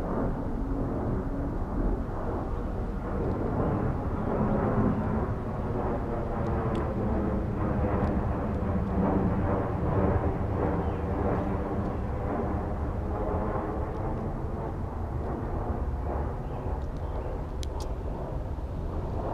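Steady engine drone from a passing motor vehicle or aircraft, swelling toward the middle and easing off toward the end.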